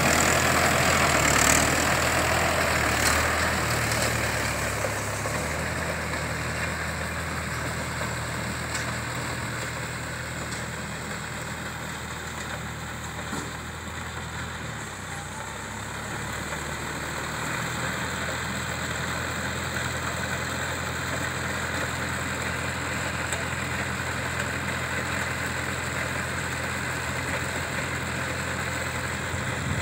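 Mahindra farm tractor's diesel engine running steadily while it pulls and powers a Redlands mini round baler through paddy straw. It is loudest at first, fades to its faintest about halfway through as the tractor moves off, then grows louder again as it comes back.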